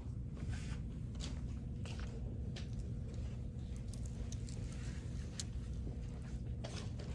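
Clothes hangers clicking against a rack, one after another, as garments are pushed along it, over a steady low hum of background room noise.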